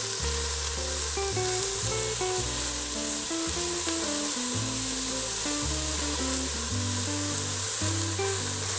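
Diced onions sizzling steadily in hot oil in a stainless steel pot as they sauté, stirred with a spatula, with background music playing.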